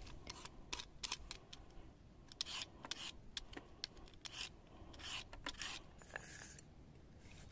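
A Y-shaped vegetable peeler scraping strips of skin off a raw carrot in short, irregular, faint strokes.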